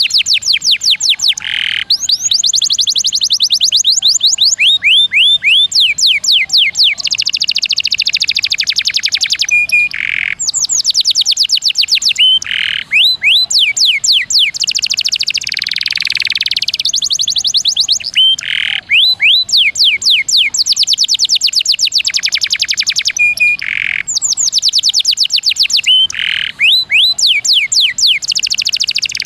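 Domestic canary singing continuously in fast rolling trills: long runs of rapid, repeated high notes, broken now and then by brief pauses.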